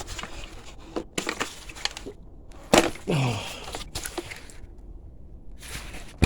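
Clicks, knocks and creaking from hard plastic parts and small fittings handled and worked loose by hand during a dirt-bike strip-down.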